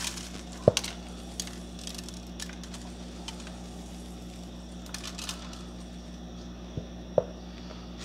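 Dried oregano being shaken onto a raw turkey in a foil roasting pan: a few light clicks and taps, the sharpest about a second in, over a steady low hum.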